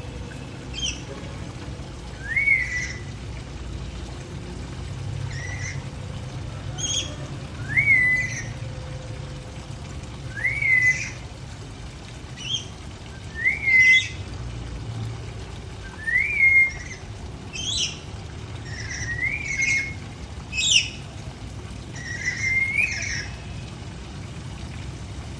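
A lory repeating a short whistled call that rises and then levels off, about every two to three seconds, with shorter squawky notes between the calls.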